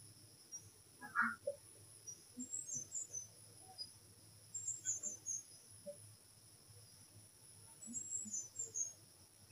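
Marker pen writing on a whiteboard: faint clusters of short, high squeaks as the tip is drawn across the board, with a few soft taps of the tip.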